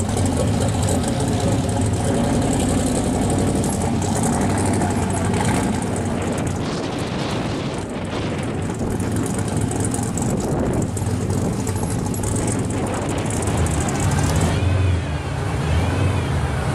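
A hot-rodded Chevy II Nova's engine rumbling at low speed as the car drives past. Near the end, a supercharged 1980s box-body Chevrolet's V8 rumbles as it pulls out and rolls forward.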